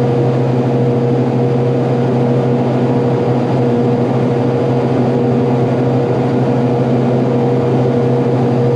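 Frick ammonia refrigeration compressor running steadily after its shaft seal was replaced, a constant machine drone with a steady low hum.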